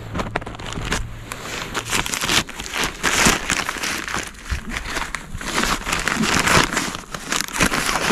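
Close rustling and crinkling with many irregular crackles, coming in louder bursts, as of dry material or packaging being handled or pushed through.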